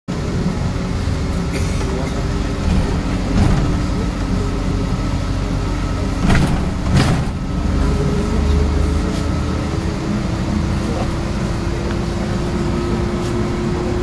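Inside a moving bus: the steady rumble of the drive and road noise, with a whine that slowly rises in pitch as the bus gathers speed in the second half. A few sharp knocks and rattles, two of them close together about halfway.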